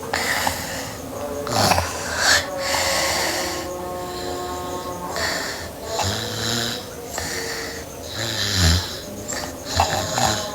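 A girl snoring in her sleep: a series of rough breaths in and out, some with a low buzzing snore, and a whistling tone near the middle.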